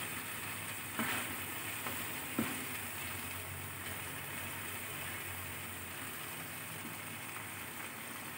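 Chickpea curry sizzling and bubbling steadily in a pan, freshly thinned with a little water. A spoon stirs it, with two light knocks against the pan about one and two and a half seconds in.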